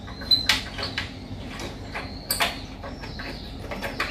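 Hex key clicking and scraping against a metal bolt on a Honda Zoomer scooter's rear frame as the bolt is turned: several sharp metal clicks at irregular intervals.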